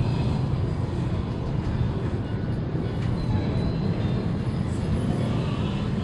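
Wind buffeting the microphone, a steady low rumble that rises and falls a little, with no clear events in it.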